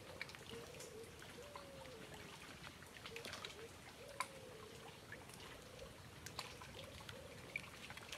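Faint water trickling and lapping against a small boat's hull, with scattered light ticks and clicks, one a little sharper about four seconds in.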